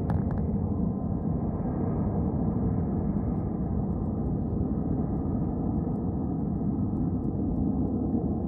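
Twin turbofan engines of a CRJ-700 jet running at takeoff power: a steady low rumble with a faint humming tone running through it.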